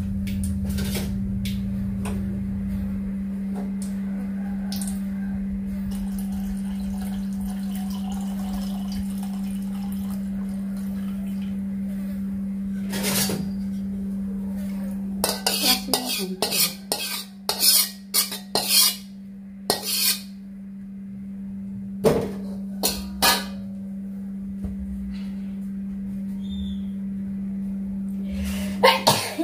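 Kitchen utensils and cookware knocking and clinking in clusters of sharp strikes, mostly in the second half, over a steady low hum.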